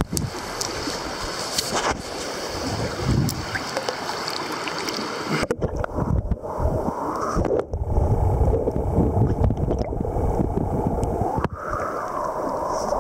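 River water running over shallow rapids, with wind rumbling on the microphone.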